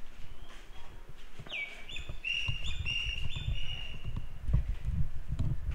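A bird calling: a short falling whistle, then a quick run of repeated chirps, over a low rumble that gets stronger near the end.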